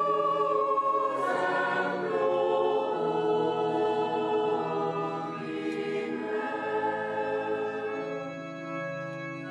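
Choir singing held chords that shift every second or so, growing quieter over the last few seconds.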